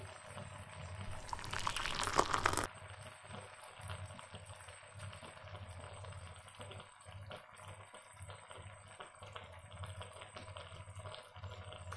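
Paneer in milky gravy simmering in a frying pan, bubbling softly. About one and a half seconds in comes a louder rush of noise lasting about a second.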